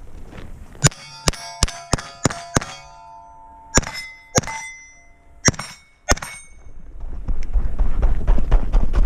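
Rifle shots hitting steel plate targets, each hit ringing with a bright clang: six quick shots about a third of a second apart, then four more at a slower pace. A low rumbling noise comes in near the end.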